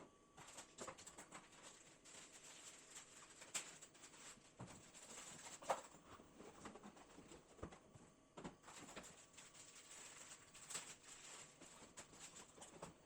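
Faint rustling of a motherboard's box and packaging being handled, with scattered light clicks and taps; the sharpest click comes a little before the middle.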